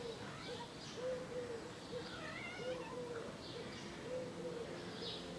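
Faint, soft cat calls, short and repeating roughly once a second, several in pairs, with a wavering higher call about halfway through.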